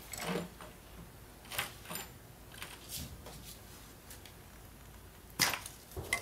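Scattered plastic and metal clicks and knocks of gloved hands working over the engine, unclipping a plastic electrical connector. The sharpest knock comes about five and a half seconds in.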